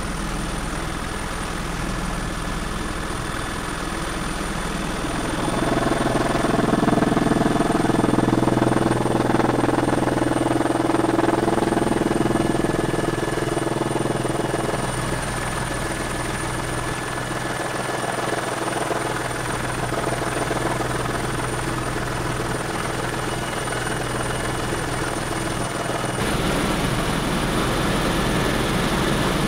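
Helicopter in flight heard from inside the cabin: continuous engine and rotor noise with a high steady whine. It grows louder for several seconds about a fifth of the way in, then changes abruptly near the end.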